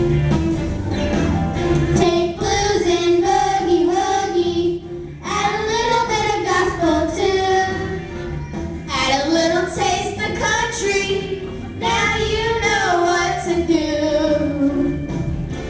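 A children's choir singing a song into microphones, with instrumental accompaniment, in sung phrases with short breaths between them.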